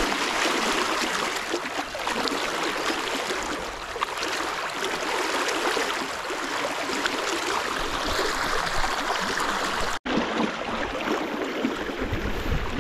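Fast, rippling river current rushing steadily, close to the microphone. It cuts out for an instant about ten seconds in, then carries on slightly duller.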